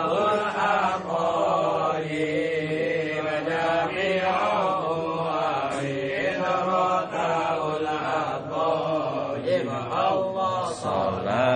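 A group of men chanting Arabic devotional verses in unison, a continuous melodic chant held and bent on drawn-out syllables.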